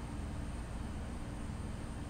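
Steady low hum and even hiss with a faint constant high whine, with no distinct events.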